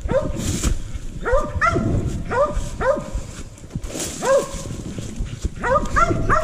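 Mountain cur dogs barking treed, short sharp barks coming in quick runs: the sign that they are holding a raccoon up a tree.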